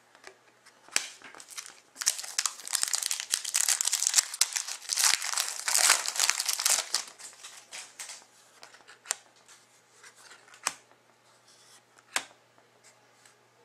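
A foil hockey card pack being torn open, its wrapper crinkling loudly for about five seconds. After that come a few light, separate clicks.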